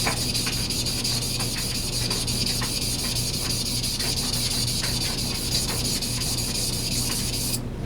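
Steel knife blade being ground back and forth on a King 1000 grit water stone: a steady, gritty rubbing hiss made of quick, even strokes that stops abruptly near the end.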